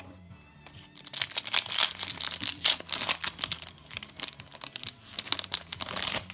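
Foil wrapper of a trading-card booster pack being torn open and crinkled, a dense run of crackling rustles starting about a second in.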